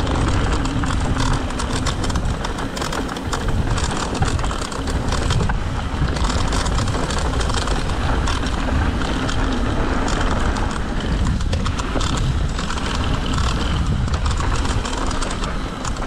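Mountain bike riding fast down a dirt trail: steady wind buffeting on the camera microphone, with the tyres rolling over dirt and gravel and the bike clicking and rattling over bumps.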